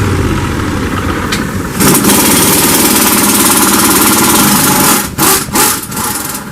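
Impact wrench run on a wheel bolt: one loud continuous rattling burst of about three seconds, then two short blips of the trigger.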